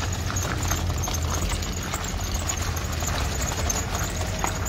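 Stroller wheels rolling over a gravel path and footsteps crunching on the gravel, many small irregular ticks over a steady low rumble.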